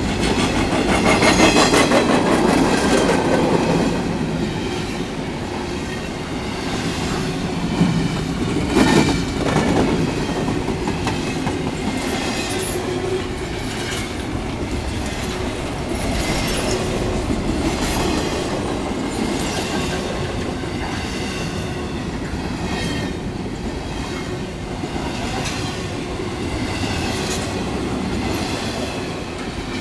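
Empty double-stack intermodal well cars of a freight train rolling past: a steady rumble of steel wheels on rail with a rhythmic clickety-clack over the rail joints, and a loud clank about nine seconds in.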